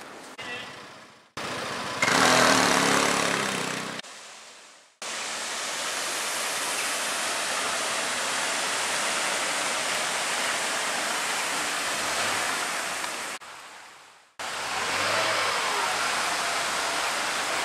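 Street traffic ambience in several abruptly cut segments: an even rushing noise with vehicles passing, the loudest pass about two to four seconds in.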